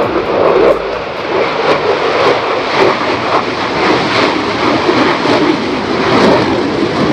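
Loud, steady jet noise from an F-35A Lightning II fighter's Pratt & Whitney F135 turbofan engine.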